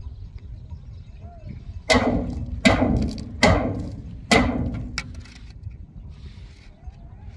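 Four ringing metal clangs, a steel shovel struck against the steel drum of a concrete mixer, one a little under a second after the other, each note dying away over about half a second.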